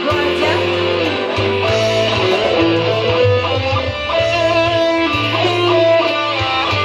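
Live band playing an instrumental passage led by electric guitar, over keyboard and a steady bass line.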